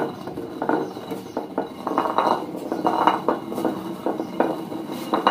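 Hand-turned grinding mill (chakki) grinding grain: a continuous gritty scraping and rattling as the upper wheel is turned on the lower one, with irregular small knocks and clicks.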